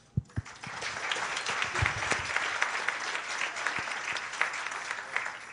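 Audience applauding, starting just after the session's closing thanks, with a few low thumps near the start, and fading away near the end.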